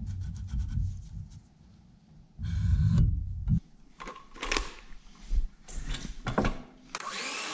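Wooden boards handled, slid and knocked together in a shop, with irregular clatter and a louder rumbling shove a few seconds in. A power tool starts running steadily near the end.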